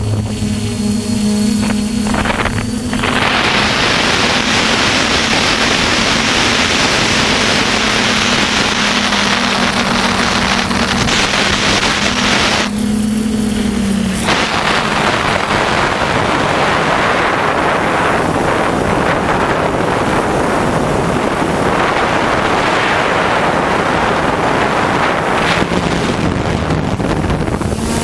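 Wind rushing over the microphone of a DJI F450 quadcopter's onboard camera in fast flight, over the steady hum of the drone's motors and propellers. About halfway the wind noise drops out briefly, and the motor hum falls in pitch and fades.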